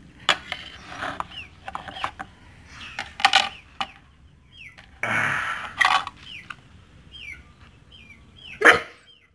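Fruit being sliced with a knife: irregular clicks, taps and a scraping rustle, with a louder knock near the end. Short high chirps sound faintly in the background.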